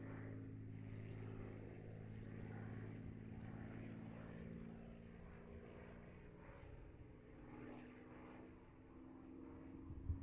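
Distant P-51D Mustang's Packard Merlin V-12 engine running in flight, faint and steady with a slowly shifting pitch. A brief knock near the end.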